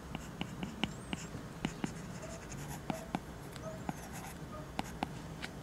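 Plastic stylus tip tapping and clicking on a tablet's glass screen while handwriting: a run of light, irregular taps.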